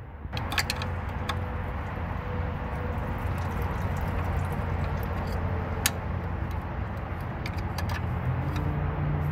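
A steady low mechanical drone, like a vehicle engine running, under a few scattered light metallic clicks from a ratchet working the 10 mm water pump bolts on a Honda D-series engine.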